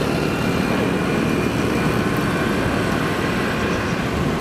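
Steady, even motor rumble with no distinct events, the kind of constant engine and traffic noise heard outdoors.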